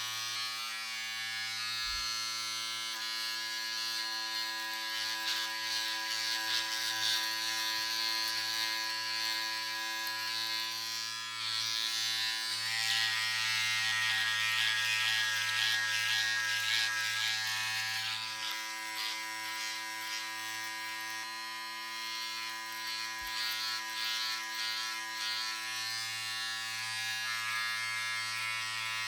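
Electric razor buzzing steadily while shaving. For several seconds in the middle the buzz turns louder and rougher in its upper range, then settles back.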